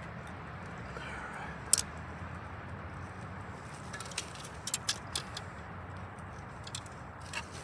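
Handling noises from a trout being worked out of a landing net on rock: scattered sharp clicks and taps, the loudest just before two seconds in and a cluster around the middle, over a steady low rumble.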